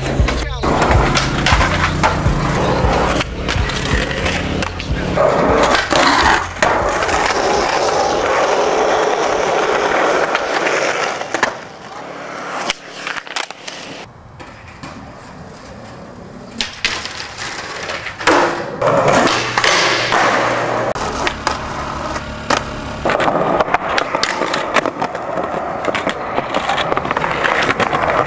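Skateboard wheels rolling on concrete, broken by the sharp pops, tail slaps and landings of tricks, with a quieter roll partway through. A music bed with a low bassline sits underneath in places.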